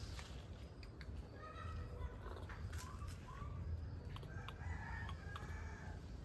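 Chickens calling: a few short clucking notes, then a longer rooster crow about four seconds in.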